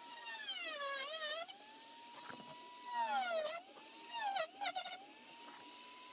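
Dremel rotary tool running with a steady high whine whose pitch dips and recovers each time it bites into hard plastic Nerf blaster shell: three louder bouts of cutting, near the start, about three seconds in and around four and a half seconds.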